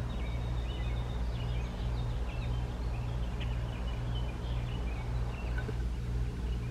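Small birds chirping over a steady low hum that throbs about twice a second.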